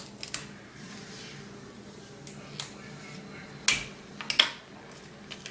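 Paper and sticky tape being handled: a few short, sharp crackles and snaps, the loudest two in the second half.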